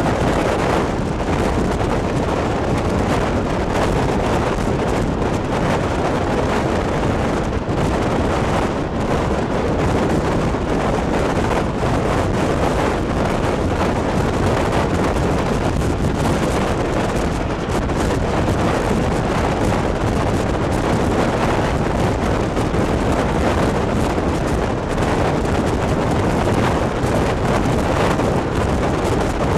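Wind buffeting the microphone held out of a moving passenger train's window, with the steady rushing running noise of the train at speed.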